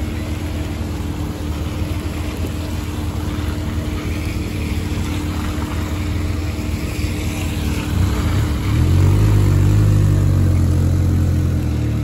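A motorcycle's engine idling close by while cars drive past with tyres hissing on a wet road. About eight and a half seconds in, the motorcycle gets louder as it pulls away.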